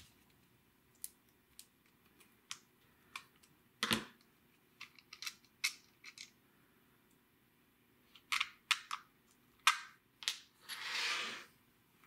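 Scattered light clicks and ticks of a Phillips screwdriver and fingers working small screws out of a GFCI outlet's plastic back housing. A sharper click comes about four seconds in, a quick run of clicks about two-thirds through, and a short scraping rustle near the end.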